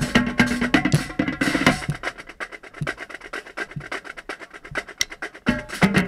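Marching drumline playing a cadence, close on a set of tenor drums (quints) struck with sticks, with the drumheads damp from rain and ringing less than usual. Loud full playing drops about two seconds in to a quieter passage of fast light strokes, and the full line comes back in loud near the end.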